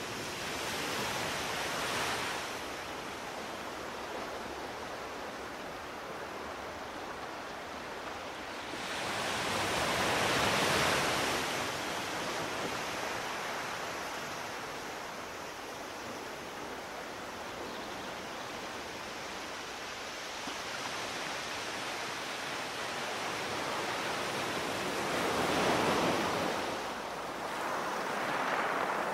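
Steady outdoor rushing noise with no distinct events. It swells louder for a couple of seconds about ten seconds in, and twice more near the end.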